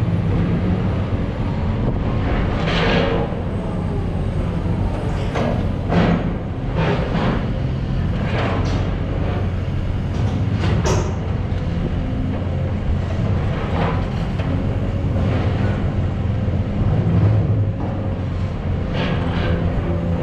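Large diesel excavator running steadily, with irregular scrapes and knocks of its steel bucket working wet clay off a ship's steel hold.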